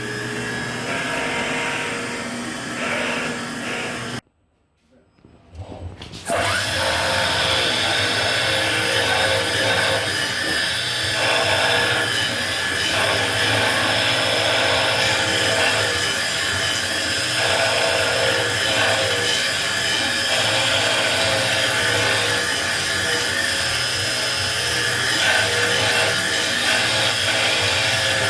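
CNC engraving and cutting machine running, its spindle working a part with a steady drilling hum. The sound drops out for about two seconds, about four seconds in, then carries on a little louder.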